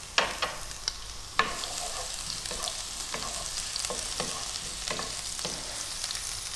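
Shredded ginger sizzling in hot oil in a nonstick wok while a wooden spatula stirs it. The spatula gives several sharp knocks against the pan in the first second and a half, then lighter taps and scrapes over the steady sizzle.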